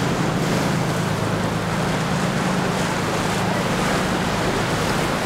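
Surf and wind on the microphone, with the steady low drone of a boat's engines underneath.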